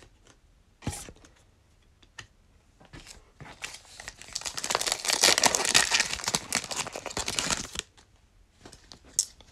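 Foil wrapper of a 2021 Donruss Football trading card pack being torn open and crinkled by hand. After a few light clicks, the wrapper crackles and tears for about four seconds, then stops.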